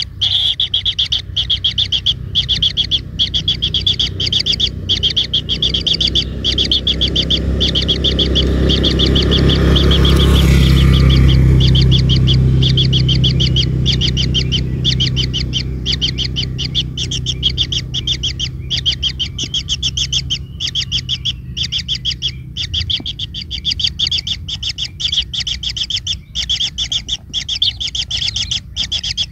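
A bird calling in a continuous run of short, high chirps, about three to four a second. A low rumble swells and fades near the middle.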